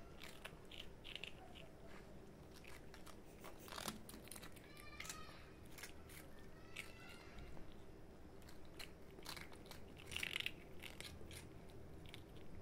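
Two cats crunching and chewing dry biscuits, a steady irregular run of small crisp crunches and clicks, with a louder flurry of crunching about ten seconds in.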